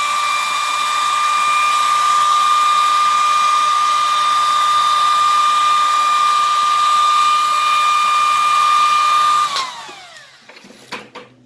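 Heat gun running: a steady high motor whine over the rush of blown air, switched off about nine and a half seconds in and winding down. It is heating a flexible bumper lip to soften it so it bends to the bumper's curve.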